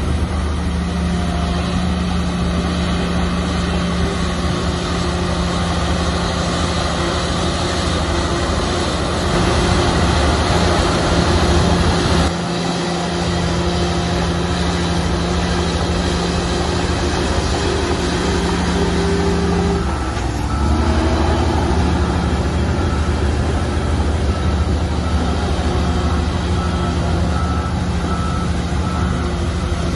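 Heavy diesel engine of an earthmoving machine running under load, its note shifting at about twelve seconds in and again around twenty seconds. From about twenty-two seconds in, a reversing alarm beeps in a steady rhythm.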